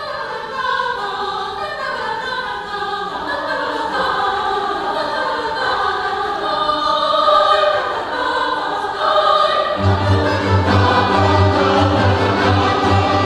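Mixed choir singing, accompanied by a folk-instrument orchestra of plucked strings. A deep repeated bass line comes in about ten seconds in.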